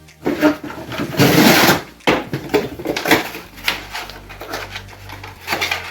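Cardboard being torn and crumpled by hand, with a loud tearing rustle about a second in and scattered knocks and scrapes around it.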